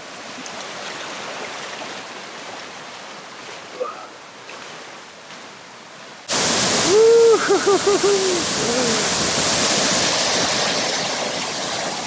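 Steady rush of flowing water from a jungle river or waterfall, a soft hiss at first that jumps abruptly much louder about six seconds in.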